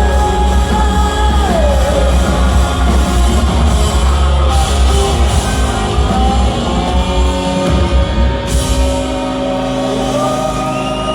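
Live rock band playing with a singer: heavy bass and drums under vocals and guitar, until the low end drops out about nine seconds in, leaving held notes ringing.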